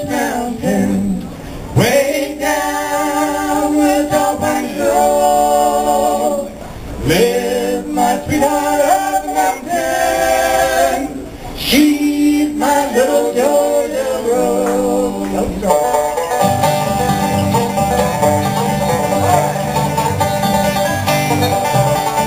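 Live bluegrass band playing: banjo, acoustic guitar and upright bass with a singer. The voice drops out about sixteen seconds in, leaving an instrumental passage over a walking bass line.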